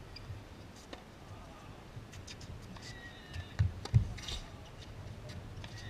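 Outdoor background noise: a low uneven rumble with scattered faint clicks and two sharp knocks a little past halfway, the second louder.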